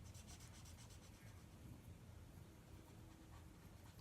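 Faint scratching of drawing on paper, over near-silent room tone.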